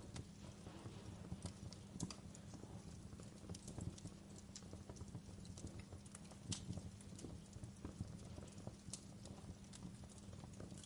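Birch logs burning in a fireplace, crackling with irregular sharp pops and snaps over a steady low rumble of the fire.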